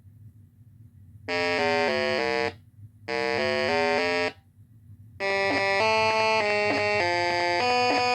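Short synthesizer-style keyboard tune: a brief four-note phrase played twice, then a longer run of stepping notes. A faint low hum sits underneath.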